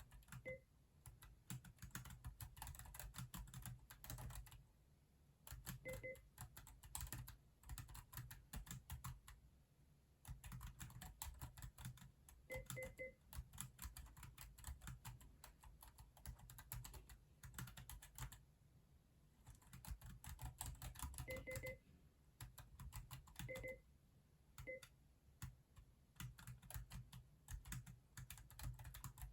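Typing on a Keychron K6 mechanical keyboard: fast runs of key clicks in bursts, with short pauses between them. A few brief, faint double beeps sound now and then over the typing.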